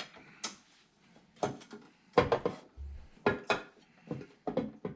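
A run of short, sharp clicks and knocks, about eight in all, from hard computer parts being handled and fitted into place during a PC build.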